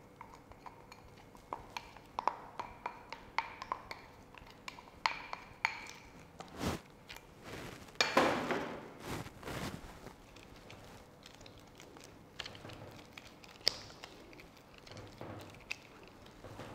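Light clicks and pings of a silicone spatula against glass bowls as the last of the flour is tapped into cake batter, followed about eight seconds in by a few seconds of scraping and the soft sounds of the thick batter being folded in a glass mixing bowl.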